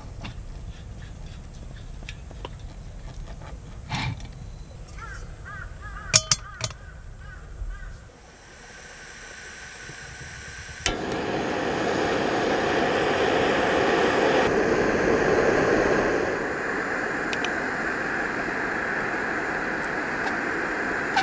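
Small metal clicks and clinks while a butane canister is fitted to a hose-fed camping stove, with a few quick bird calls. About eleven seconds in, a sharp ignition click, then the gas burner runs with a loud, steady rushing noise, a little lower for the last few seconds.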